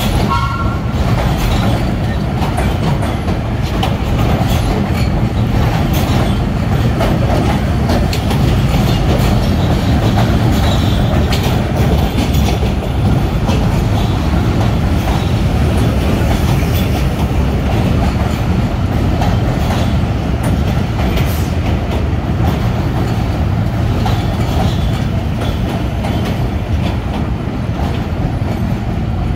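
A vintage subway train of BMT Standard and R1/9 cars rolls slowly through the station with a steady rumble, its wheels clacking over the rail joints. A short two-note horn toot ends right at the start.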